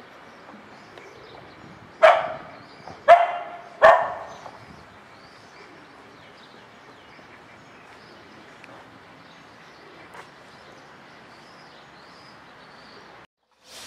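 A dog barking three times, about a second apart.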